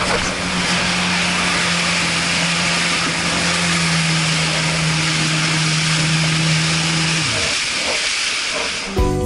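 Jet ski engine running at a steady speed under a loud hiss of spray and rushing water. About seven seconds in the engine note drops away as the throttle is let off, leaving mostly the water rush, and guitar music starts at the very end.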